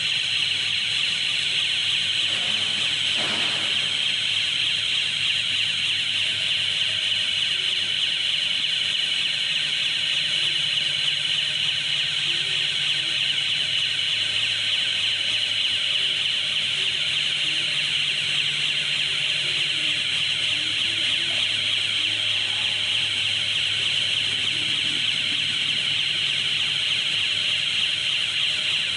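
Electric rail transfer cart's warning alarm sounding steadily while the cart travels, a continuous high-pitched tone over a low hum.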